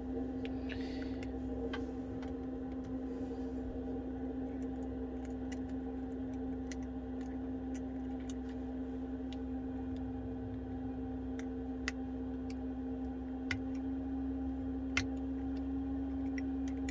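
Small metal tools clicking and tapping against iPhone 12 internals during disassembly, with a few sharper ticks in the second half, over a steady background hum.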